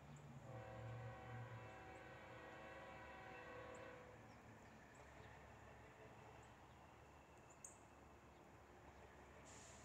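Distant locomotive air horn on an approaching CSX freight train, one steady chord held for about three and a half seconds, over a faint low rumble of the train.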